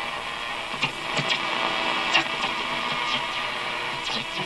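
Static from a vintage Fairbanks Morse radio's speaker while it is tuned to an AM station: a steady hiss with scattered crackles and clicks between the broadcast's words.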